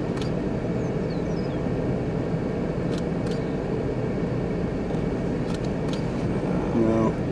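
Steady low rumble inside a car with its engine running, with a few faint clicks in the middle.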